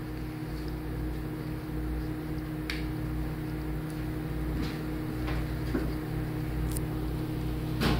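Steady mechanical room hum made of several low tones, with a few faint clicks and rustles as a newborn's clothes are handled and fastened.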